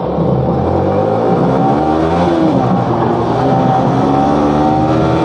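Yamaha sport motorcycle's engine accelerating through the gears: its pitch rises, drops sharply at an upshift about two seconds in, then climbs again.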